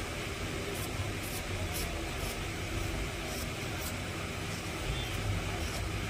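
Steady low hum and hiss of background noise, with a few faint light ticks as the thin lead wires of a rewound table-fan stator are handled.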